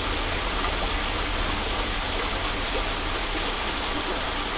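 Shallow stream water flowing steadily: an even, continuous rush with no separate splashes.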